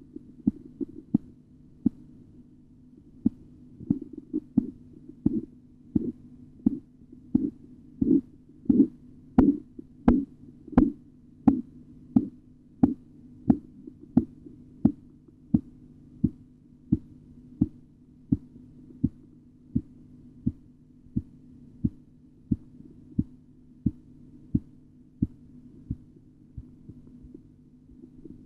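Korotkoff sounds heard through a stethoscope as a blood pressure cuff deflates: regular taps with the pulse, about 85 a minute, over a steady low hum. They start soon after the beginning, grow loudest about a third of the way in, then fade away and vanish near the end. The first taps mark the systolic pressure and their disappearance marks the diastolic.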